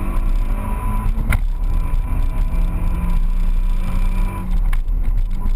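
Car engine running steadily at speed, heard from inside the cabin with road and wind noise. Two short knocks, one about a second in and one near the end.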